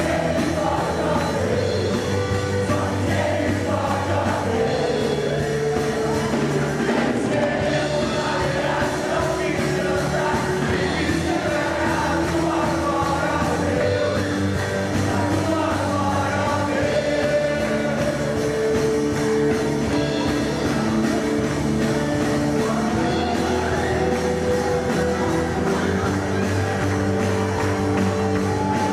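Background music: a rock-style song with sung vocals and a steady beat.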